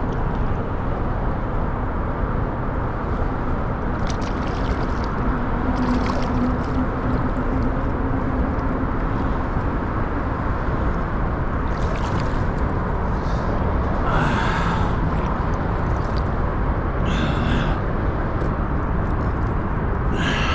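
Steady rushing outdoor noise from wind buffeting the microphone, with a faint steady hum for a few seconds and a few brief faint pitched sounds later on.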